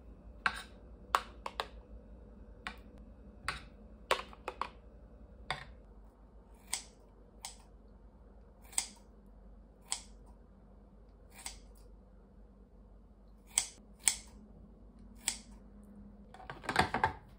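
A series of sharp, irregular clicks and taps of small hard objects, about twenty in all, with a quick flurry of several near the end.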